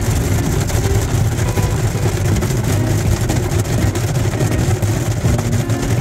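Automatic car wash heard from inside the car: a steady low rumble of the wash machinery, with water spraying and pattering on the windshield and roof as the cloth brushes work the car.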